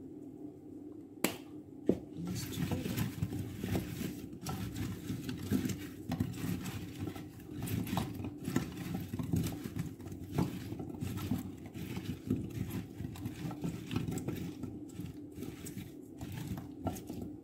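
Hands tossing raw, seasoned chunks of sweet potato and carrot in a glass baking dish: an irregular, continuous clatter and rustle of the pieces knocking together and against the glass. Two sharp knocks come about a second in, before the mixing starts.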